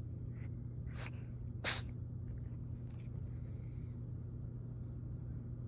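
A cat sneezing twice in quick succession, about a second in and again under a second later: two short, sharp bursts, the second the louder. A steady low hum runs underneath.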